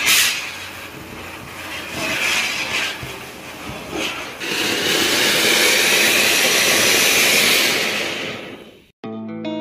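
Fireworks hissing: a ground spinner (chakri) fizzing unevenly, then from about four and a half seconds a fountain firework (anar) spraying sparks with a louder, steady hiss that fades and cuts off near the end.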